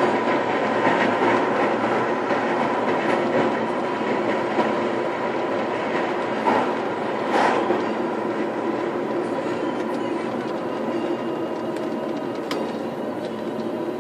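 Road and engine noise inside a moving Audi A4 Avant TDI (turbo-diesel) estate, picked up by a phone on a dashboard mount: steady tyre roar with a faint engine hum and small rattles. It eases slightly near the end as the car slows.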